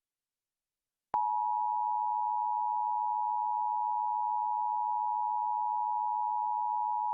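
Emergency Alert System attention signal: a steady two-tone broadcast alert tone (853 and 960 Hz) that starts with a click about a second in and holds unchanged, announcing a severe thunderstorm warning.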